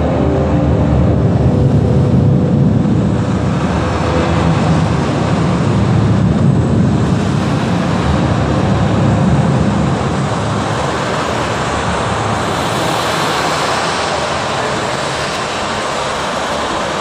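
Soundtrack of a light-projection show played over loudspeakers: a loud, rumbling, noise-like soundscape. A few held musical tones fade out in the first seconds, and a brighter hiss builds near the end.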